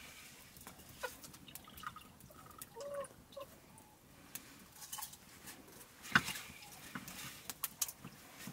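A chicken clucking a few times, faintly, about three seconds in, among scattered small clicks and crackles; the loudest is a single sharp click about six seconds in.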